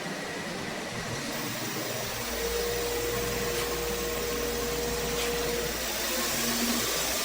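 Powermatic 3520C wood lathe running at slow speed with a steady motor hum; a deeper hum comes in about two seconds in, with a thin whine over it for a few seconds. The lathe is on a slow test spin after repair, checking that it runs true.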